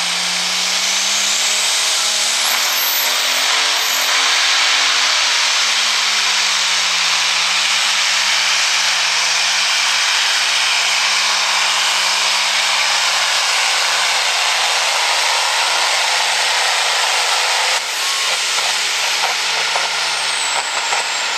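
Light pro stock pulling tractor's turbocharged diesel engine running flat out under load during a pull, loud and steady with a high whine over it and a wavering engine note. About 18 seconds in the sound drops and turns choppy as the engine comes off full power, and the high whine falls away near the end.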